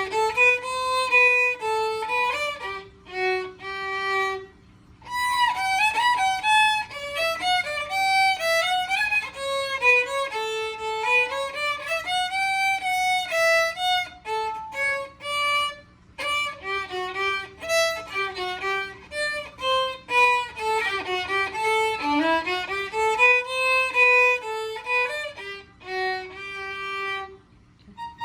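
Solo violin playing a melody in phrases, with short breaks between them and a few notes slid up into.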